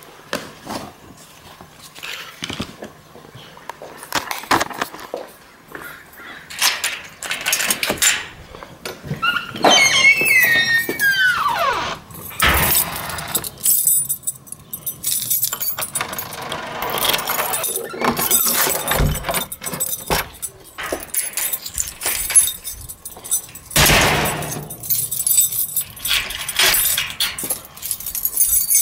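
Knocks, rubs and clicks of a handheld camera being carried, with a door lever handle and latch being worked. About ten seconds in, a squeal falls steeply in pitch for a couple of seconds.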